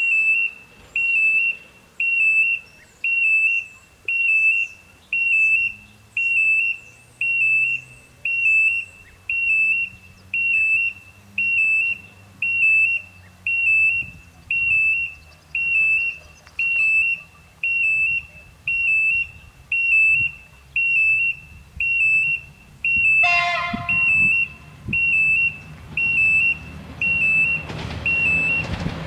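Electronic level-crossing warning bell sounding a steady, evenly repeating high beep, about four beeps every three seconds. A short horn sounds about 23 seconds in, and a car approaches near the end.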